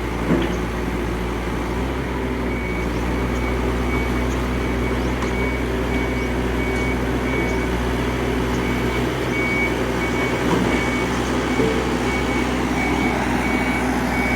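Diesel engine of a heavy machine running steadily. From about three seconds in, a backup alarm beeps at an even pace, a little over once a second.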